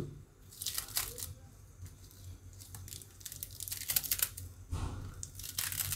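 Small kitchen knife cutting through fresh spinach leaves and stems held in the hand, a run of short crisp slicing snaps at irregular intervals.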